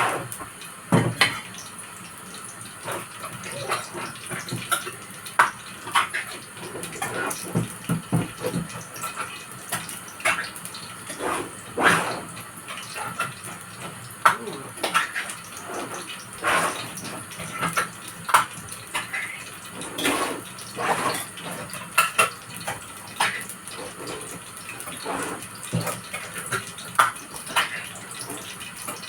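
Hot oil sizzling in a cooking pot, with irregular sharp pops and crackles over a steady hiss, as stew is fried.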